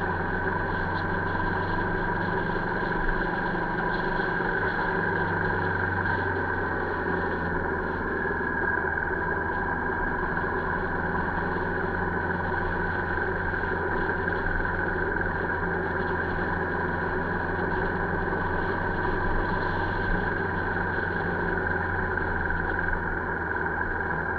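Steady drone of a vehicle's engine and road noise while riding at an even speed.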